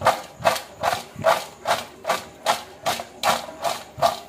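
Crispy French fries tossed in a steel bowl, clattering against the metal in a steady rhythm of about two or three tosses a second. The dry, crisp clatter shows the fries are fried crisp.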